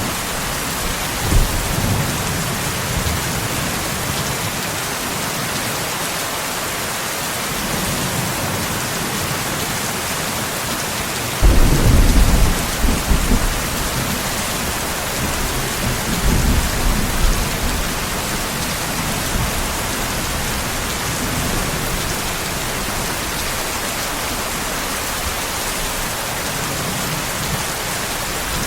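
Steady heavy rain with thunder. A sudden loud clap about eleven seconds in rumbles on for a couple of seconds, with fainter rolls of thunder before and after it.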